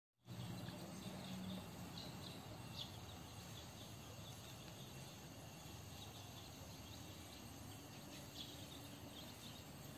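Faint outdoor background noise with insects chirping in short, high, repeated calls; a low hum is there for the first second and a half.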